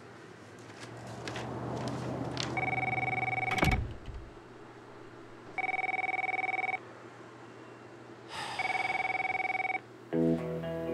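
Office telephone with an electronic ring, ringing three times, each ring about a second long and about three seconds apart. A sharp thump comes near the end of the first ring, and music comes in near the end.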